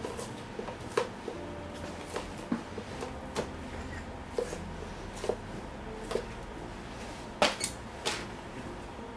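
Steel cobbler's pincers gripping and prying the leather heel off a shoe, giving irregular sharp clicks and knocks with short squeaks of the heel working loose; the loudest pair of knocks comes about three-quarters of the way through.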